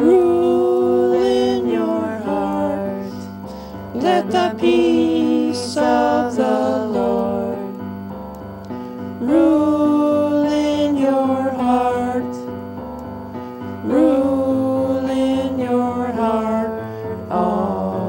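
A slow worship chorus sung with long held notes over keyboard accompaniment.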